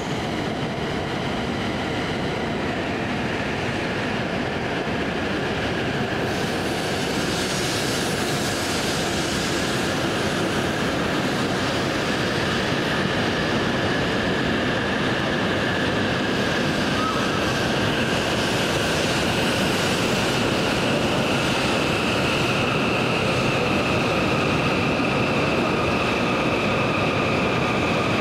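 E7/W7-series Hokuriku Shinkansen train pulling along the platform: a steady rush of wheels and running gear, growing a little louder, with high steady whining tones over it.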